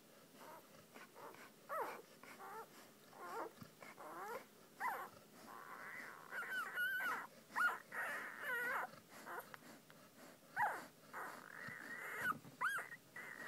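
Puppies whining and whimpering: many short, high calls that slide up and down in pitch, coming thicker and sometimes overlapping from about five seconds in.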